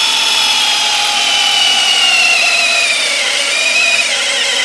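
Cordless brushless hammer drill on speed 2 boring a 1-inch by 17.5-inch auger bit into wood, its motor whine running continuously and slowly dropping in pitch as the bit loads it down.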